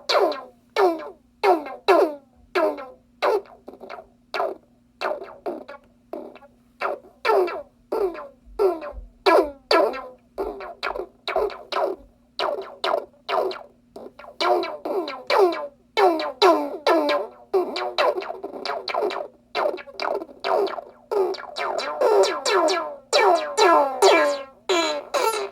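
Small electronic synthesizer noise box playing a running sequence of short plucked notes, about two a second, each note dropping quickly in pitch, over a steady low drone.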